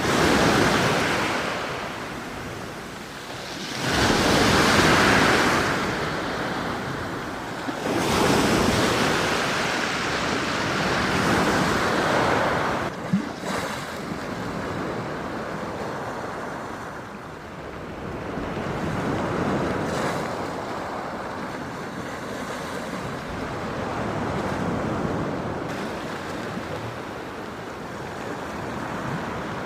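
Black Sea waves washing onto the shore, the surf swelling and easing away every few seconds. There is one short sharp sound about halfway through.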